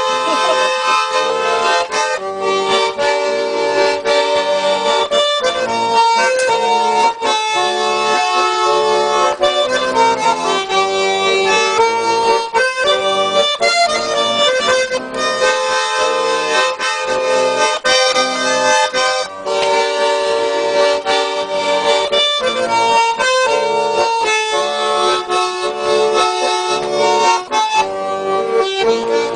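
Accordion playing an instrumental interlude between verses of a Russian song, a melody over chords with the notes changing quickly and the playing kept up throughout.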